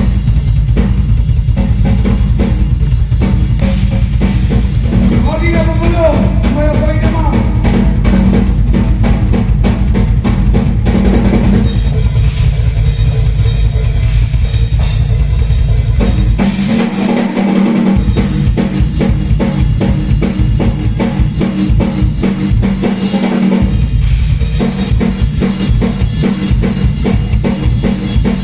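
A live band playing at a sound check, led by a loud drum kit with fast kick and snare hits over a steady bass line. The low bass drops out briefly twice in the second half.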